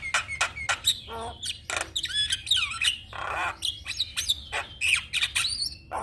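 Javan myna (jalak kebo) singing: a fast run of sharp chattering notes, about five a second, mixed with whistled slurs, with a harsh squawk about three seconds in.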